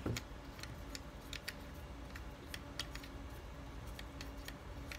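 Light, irregular clicks and ticks, about three a second, as the sliding brake lock's tightening screw is worked back into a Sachtler fluid tripod head by hand.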